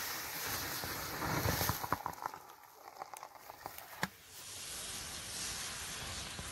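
Thermite burning on an engine block: a steady hiss with scattered crackles and pops, and one sharper crack about four seconds in.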